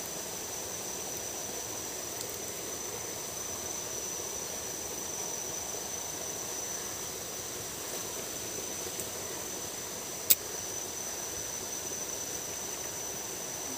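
Outdoor ambience: a steady hiss with a continuous high-pitched insect drone, and one sharp click about ten seconds in.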